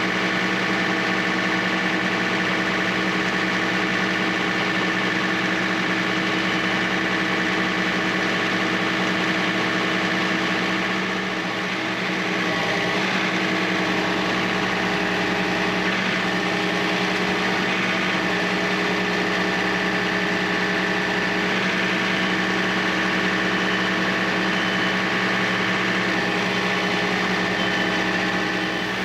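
Engine of a Wood-Mizer LT15 portable sawmill running steadily at one speed, with a brief slight drop in level about eleven seconds in.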